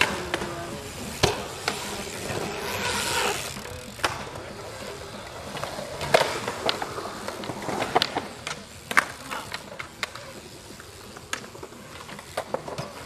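BMX bike riding a concrete skatepark bowl: tyres rolling on the concrete, with a series of sharp knocks and clacks as the bike lands and strikes the concrete.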